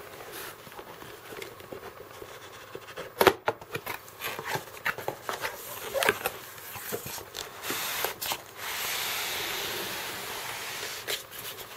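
Cardboard box and polystyrene foam insert of a diecast model being handled: rustling and scattered knocks, a sharp knock a little over three seconds in. Near the end comes a steady scraping rub of about two seconds, the foam block sliding out of its cardboard sleeve.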